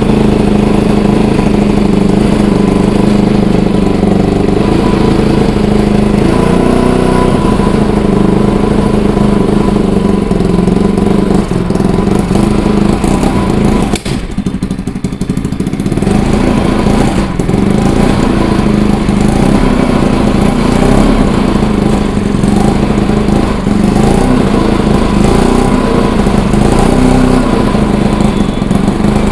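Bajaj Pulsar NS200's single-cylinder engine running steadily after a three-month lay-up, now that its gummed-up carburettor and carboned kill-switch contacts have been cleaned. The revs rise briefly about six seconds in, and the sound dips for a moment about halfway through.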